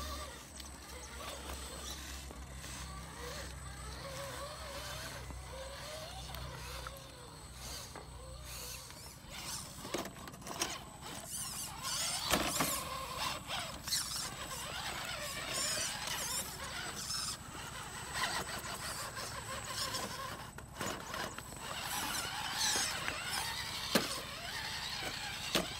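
RC rock crawler driving over rocks: an electric motor and gear whine that wavers in pitch, then scraping and several sharp knocks as the truck's tires and chassis work over the stones.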